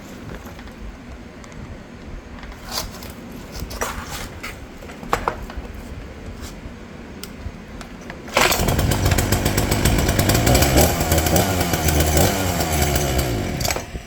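Several knocks and clicks, then about eight seconds in a Ryobi gas chainsaw's two-stroke engine starts and runs loudly for about five seconds, its pitch rising and falling, before cutting off suddenly near the end.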